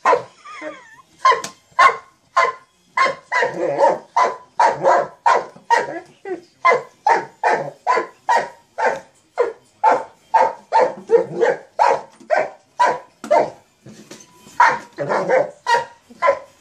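Mastiff barking over and over at a toy, about two barks a second, with a short break about fourteen seconds in before louder barks resume.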